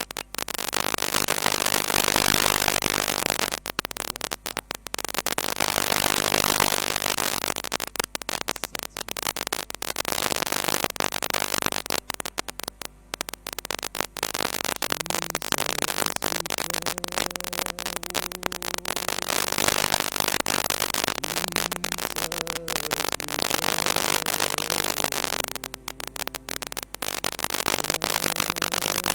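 Loud, crackling static-like noise across the whole range, cutting out briefly several times, most plainly about halfway through and again near the end.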